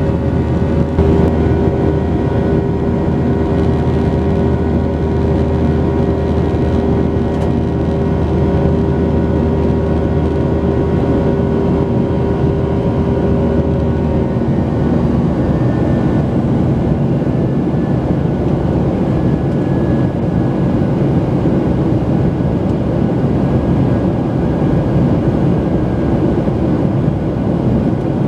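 Boeing 737-800 heard from inside the cabin, its CFM56 jet engines running with a steady hum over a low rumble. About halfway through, the steady tones give way to a broader, rougher rumble.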